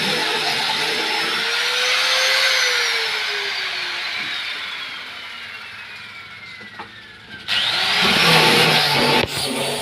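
Electric sanding machine motor running, then winding down with a steadily falling whine after being switched off. About 7.5 s in it is switched on again and spins up with a rising whine, then cuts off abruptly a little before the end.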